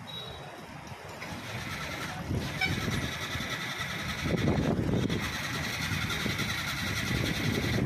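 Muddy floodwater rushing down a channel and spilling over a low weir, a steady rushing noise that grows louder about halfway through.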